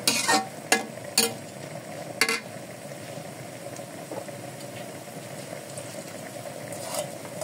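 Egg noodles sizzling steadily in a hot metal wok while a spatula knocks and scrapes against the pan four or five times in the first couple of seconds, then the sizzle alone.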